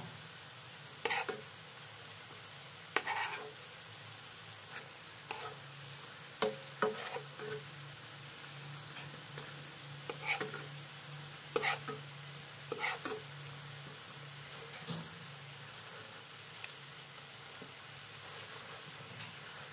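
Fried milkfish simmering and sizzling in sauce in a pan, with a steady hiss throughout. A metal spoon clinks and scrapes against the pan now and then as the sauce is spooned over the fish.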